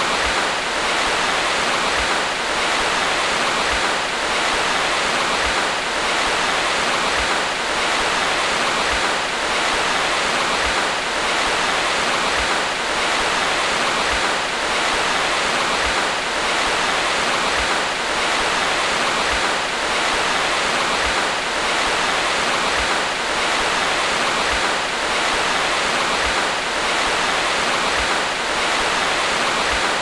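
Steady heavy rain, an even hiss, with soft low thumps every second or two.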